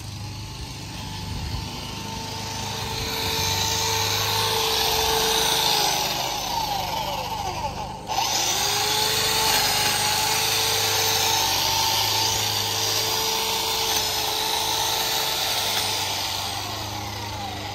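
Power hedge trimmer running steadily with its high whine and blade chatter. It slows down and stops about eight seconds in, then starts up again and runs on.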